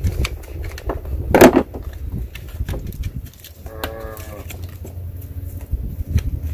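Handling noise from heat shrink being pried off a GPS tracker collar: scattered clicks and scrapes, with a loud burst of noise about a second and a half in. About four seconds in, an animal gives one short pitched call lasting under a second.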